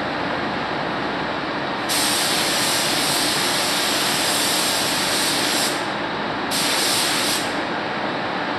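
Gravity-feed paint spray gun hissing in two trigger pulls: a long one of nearly four seconds starting about two seconds in, then a short one of about a second near the end. Under it is a steady rush of background air noise.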